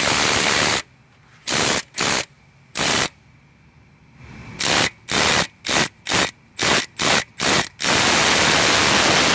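Air ratchet run in short bursts, turning the 13 mm bolt of a valve-spring compressor tool, its exhaust air hissing: about a dozen quick bursts, then one held for about three seconds near the end.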